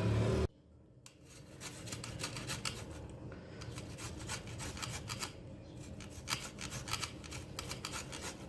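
Fresh ginger root being rubbed on a grater to extract its juice: quick rasping strokes, several a second, starting about a second in.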